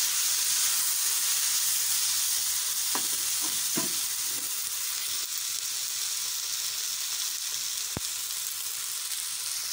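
Chopped capsicum and onion sizzling steadily in hot oil with soy and chilli sauces in a kadai. A steel spatula stirs them, scraping and tapping the pan a few times, with one sharp tap near the end.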